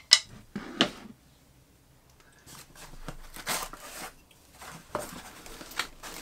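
Parts being handled at a wooden workbench: two sharp knocks in the first second, then rustling and scraping of foam packing in a cardboard box, with scattered clicks, as metal pieces are lifted out.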